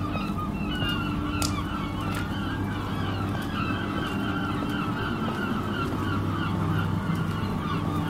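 A flock of birds calling continuously, many short overlapping honking calls, over a low steady hum.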